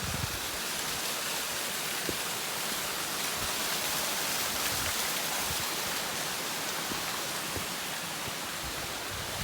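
Water rushing steadily, as from a mountain stream or waterfall, a constant hiss-like noise slightly louder in the middle.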